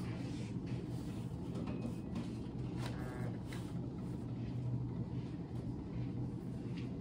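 Steady low room hum with a few faint clicks and a brief soft rattle about three seconds in.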